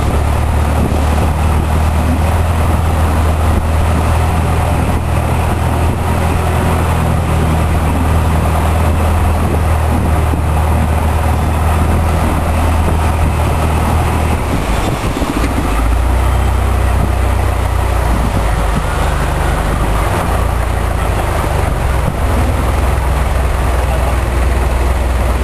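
Boat engine running steadily with a loud low hum; its note drops lower about halfway through.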